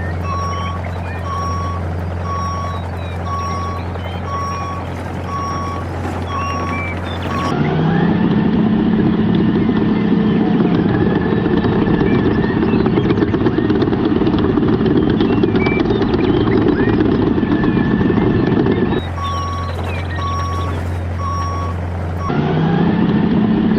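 A vehicle reversing alarm beeps steadily, about once every three-quarters of a second, over a low engine hum. It alternates twice with a louder small motor that starts with a short rising whine and then runs on with a rattling noise.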